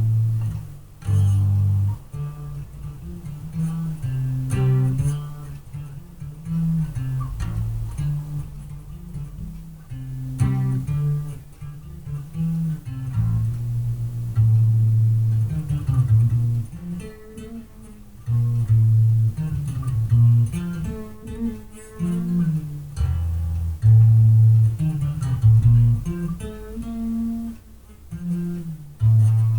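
Freshly restrung five-string electric bass guitar played through a bass amp cabinet: a continuous line of plucked single low notes, changing pitch every fraction of a second to a second or so, heard from across a small room.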